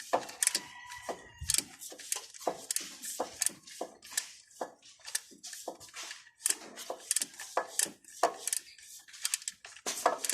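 Hand tools clicking and knocking against metal engine parts in quick, irregular strokes, with a brief metallic ring about half a second in.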